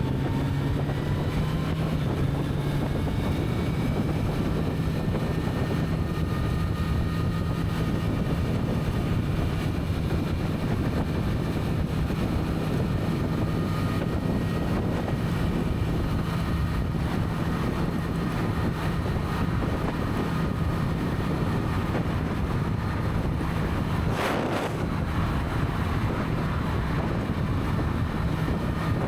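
Kawasaki Z900 inline-four motorcycle engine running at a steady cruise on its stock exhaust, its note rising slightly near the start and then holding. Wind buffets the microphone throughout.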